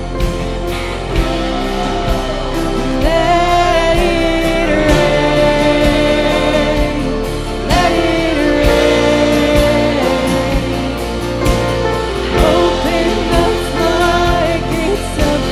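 Live worship band playing a song with guitars, keyboard and a steady drum beat; lead vocals come in about three seconds in.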